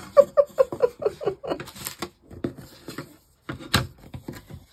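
A quick run of short chuckles, then light clicks and knocks as small diamond-painted wooden ornaments and their stands are handled on a table, with one sharp knock near the end.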